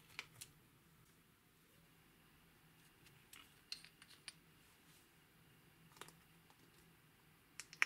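A few quiet, scattered clicks and taps from hands handling slime and a plastic squeeze tube of body paint in a glass dish, with two quick clicks near the end, the last the loudest.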